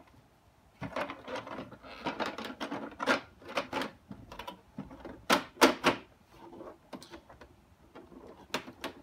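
Plastic knocks, clicks and clatter from the housing of an Electrolux Epic 6500 canister vacuum as it is handled and its shell pressed back together. The noises start about a second in and come irregularly, with the loudest knocks a little past the middle.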